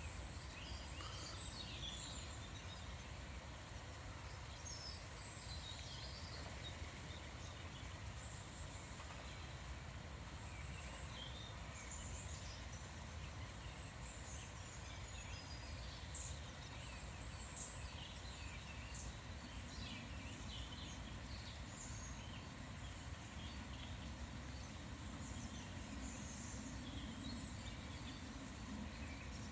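Small birds chirping and calling, many short scattered calls throughout, over a steady low background rumble.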